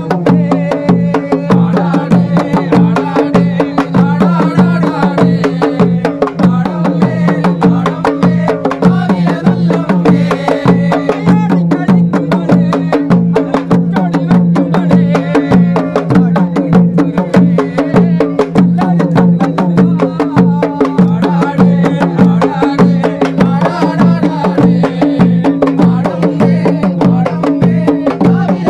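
Traditional Kerala ritual drumming: drums and sticks beaten in a rapid, steady rhythm without pause, with crowd voices over it.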